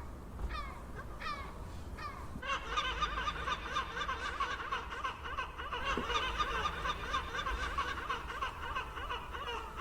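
Gulls calling: a few separate calls at first, then from about two and a half seconds in a dense chorus of many gulls calling over one another, over a steady low rumble.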